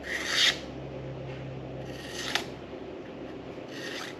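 Freshly stropped knife blade slicing through a sheet of paper to test its edge: a short, dry cut right at the start, the loudest, another about two seconds in and a fainter one near the end.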